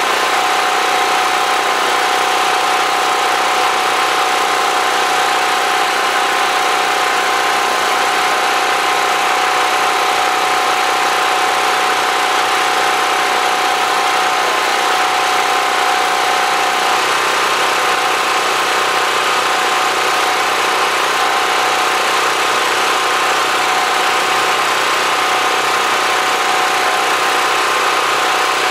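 Generator engine running steadily: a loud, even engine noise with a few steady tones in it.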